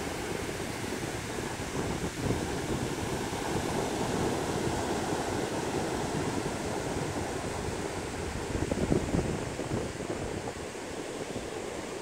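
Wind buffeting the microphone over the steady wash of ocean surf breaking on a sandy beach.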